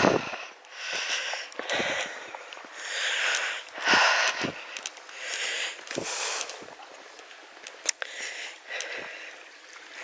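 Footsteps on a grassy dirt path, soft swishing steps about once a second with a few small clicks and crunches, over the faint steady rush of a small brook.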